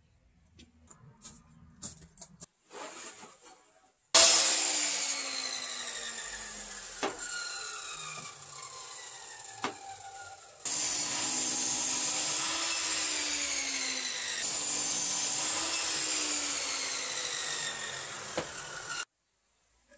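Sliding compound miter saw cutting timber boards. Faint knocks of wood being handled, then the saw's motor whine falling as the blade slows, then the saw running loud through a cut with its pitch wavering under load, stopping abruptly near the end.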